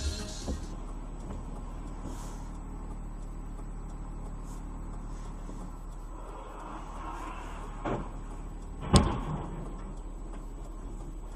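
Steady low drone of a car running on the road, with a knock about eight seconds in and a sharp bang about a second later, the loudest sound.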